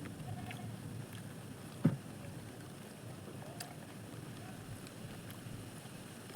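Steady low rumble of background noise, with one sharp knock about two seconds in and a few faint clicks.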